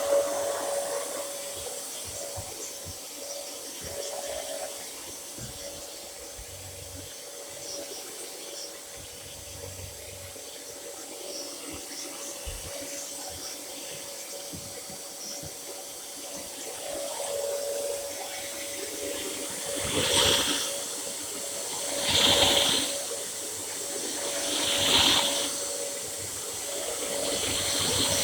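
Running water with a steady hiss, rising into four louder gushes in the second half.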